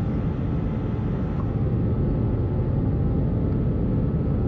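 Steady cabin noise inside an Airbus A320-214 in flight: a low, even rush of airflow and engine drone from its CFM56 engines, with a faint steady hum above it.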